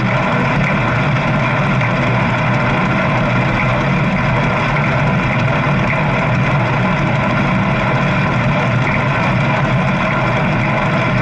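Steady, loud rushing noise of a bike ride picked up by an action camera's microphone: wind over the microphone mixed with the bike's running noise, unchanging throughout.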